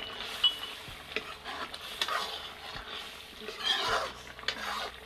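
Metal ladle stirring thin-cut potato strips in a watery curry in a metal kadhai, swishing through the liquid and scraping the pan with a few sharp clinks, the loudest about half a second in.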